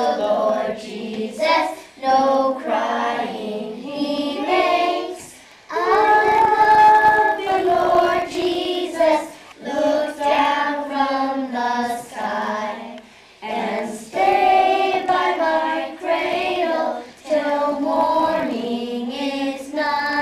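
A group of young girls singing together, in phrases with short pauses between them.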